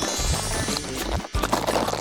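Background music, with a bright shimmering sweep in the first second.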